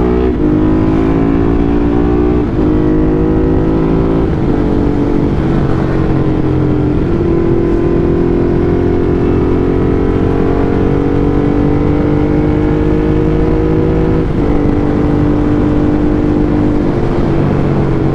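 Motorcycle engine under way. Its pitch climbs slowly and then shifts abruptly several times, as at gear changes, over a steady rush of wind and road noise.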